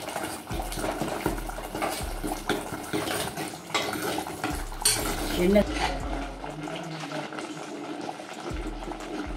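A steel ladle stirring thick tamarind gravy in a clay pot, clinking and scraping against the pot with many short clicks, while the gravy bubbles as it boils down and thickens.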